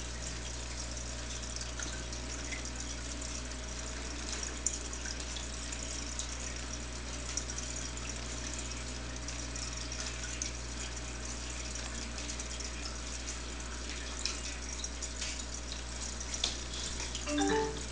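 Aquarium filter running: a steady low hum under a constant trickling and hissing of moving water, with faint scattered ticks. A brief, louder pitched sound comes near the end.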